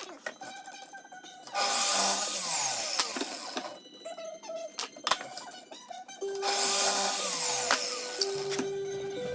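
Background music mixed with two loud runs of a power tool, each lasting about two seconds, the first about one and a half seconds in and the second about six seconds in; each run falls in pitch as it winds down.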